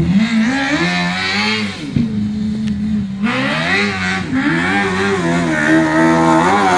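600 micro sprint car's 600cc motorcycle engine, revving hard and backing off again and again as the car laps a grass oval: the pitch climbs, drops sharply about two and three seconds in, then climbs again.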